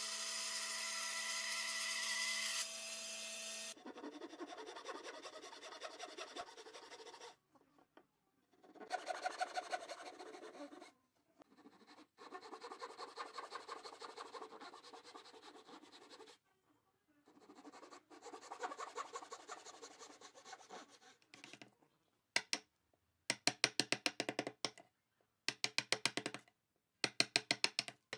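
A band saw cutting a pine board, its steady running stopping about four seconds in; then a hand saw cutting a pine batten in several bouts of quick, even strokes; then, near the end, a chisel struck repeatedly in fast bursts of sharp blows as it chops a notch in the wood.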